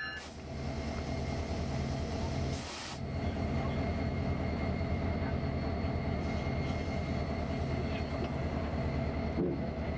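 Diesel locomotive engine running with a steady low drone that pulses a few times a second, with a short hiss of air about two and a half seconds in.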